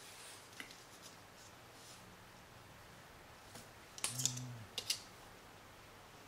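Light clicks and ticks of small iPhone parts being handled and pressed into place. A few faint clicks come early, then a louder cluster of clicks about four seconds in and two more just before five seconds.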